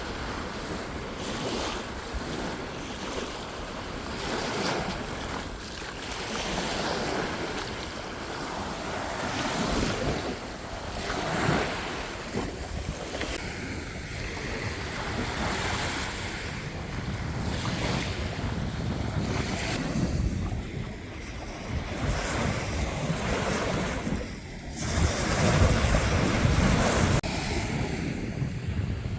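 Sea surf washing on the shore, with wind buffeting the microphone in low rumbling gusts, strongest near the end.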